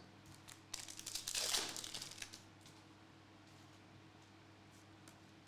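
Crinkling of a trading-card pack's foil wrapper, lasting about a second and a half, then near quiet with a faint steady hum.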